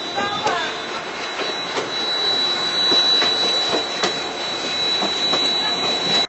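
Train running, heard from aboard at an open window or door: steady rumbling with irregular clicks of the wheels over the rail joints, and a steady high whine over the top. The sound cuts off suddenly at the end.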